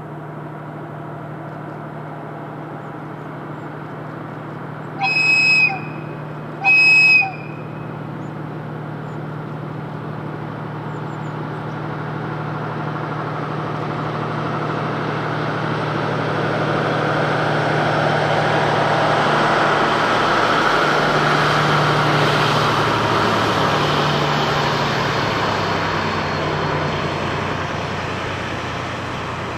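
DF200 diesel-electric locomotive's engine working hard as it hauls a heavy freight train upgrade, with two short horn blasts about five and seven seconds in. The engine and wheel noise build up, peak about twenty seconds in as the locomotive and its container wagons pass, then ease off a little.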